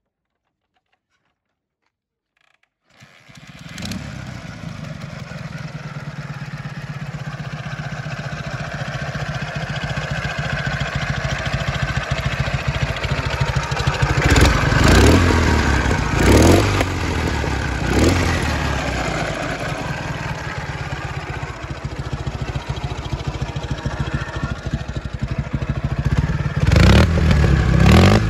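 Ural motorcycle's air-cooled flat-twin (boxer) engine starting about three seconds in and then running steadily. The throttle is blipped in short revs several times around the middle and again near the end.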